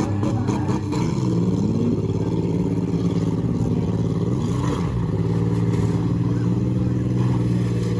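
Demolition derby car engines running hard at high revs, the pitch easing down about a second in and dipping and climbing back again midway.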